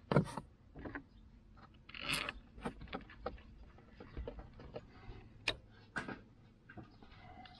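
Scattered light clicks and taps of small screws being fitted by hand into an aluminium speed-sensor housing on an ATV engine case. There is a sharper knock right at the start, a small cluster about two seconds in, and two crisp ticks near the end.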